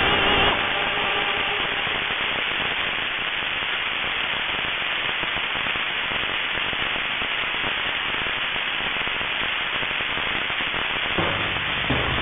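UHF military satellite channel heard through a web SDR receiver: the music on it stops about half a second in, leaving steady radio static hiss. Near the end a low hum comes in under the hiss.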